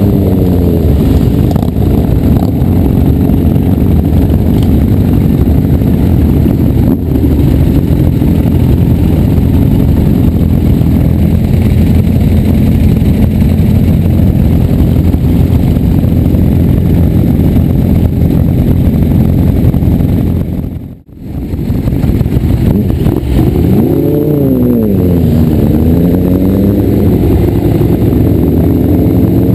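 Motorcycle engine running at riding speed with heavy wind rush. Near the end the engine note swings up and down in pitch as it revs through the gears. Two-thirds of the way through, the sound briefly fades out and returns.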